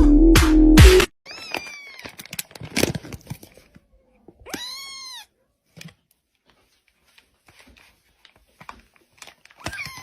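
Loud electronic music with a heavy beat cuts off abruptly about a second in. A cat then meows twice: a short falling meow, then a longer one that rises and falls, with scattered small clicks and rustles around them.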